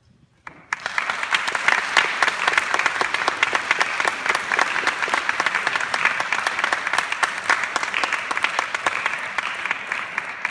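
Audience applauding after an orchestra piece: dense clapping that breaks out about half a second in and starts to fade near the end.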